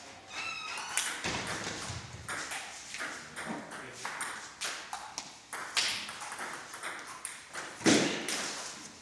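Table tennis rally: the ball clicking off the rubber paddles and bouncing on the table, hits coming a fraction of a second apart, with one loud sharp hit about eight seconds in.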